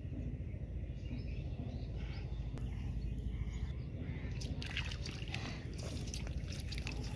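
Hands splashing and stirring shallow muddy water, with sharper, more frequent splashes from about four seconds in.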